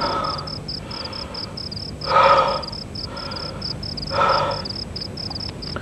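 Crickets chirping steadily, about five chirps a second, with two short harsh cries about two and four seconds in.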